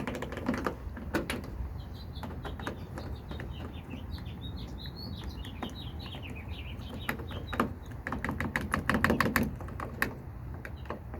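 Small birds chirping in the background, then a fast run of clicks and rattles from about seven to ten seconds in as a Toyota Tundra's exterior door handle assembly is wiggled and worked loose from the door.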